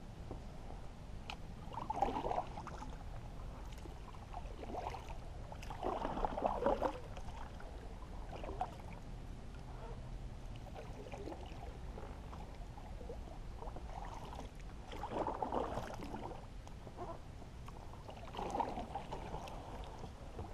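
Paddle strokes through shallow marsh water beside a small boat: a splashing gurgle every two to four seconds, with a steady low rumble underneath.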